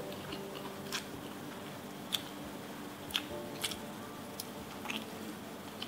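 Close-miked chewing and lip smacks of someone eating nasi padang by hand: about six short, sharp wet clicks spread over a faint steady hum.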